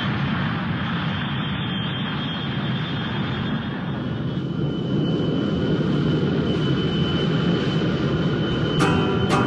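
A steady low rumbling drone with a faint, steady high whine over it. Strummed acoustic guitar comes in right at the end.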